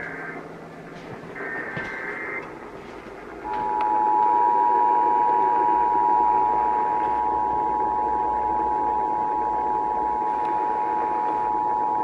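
Emergency Alert System tones over AM radio static. First come the last EAS data-header bursts: one short warbling screech ending just after the start and another about a second and a half in. Then, about three and a half seconds in, the two-tone attention signal starts: two steady tones sounded together that run on unbroken, louder than the bursts.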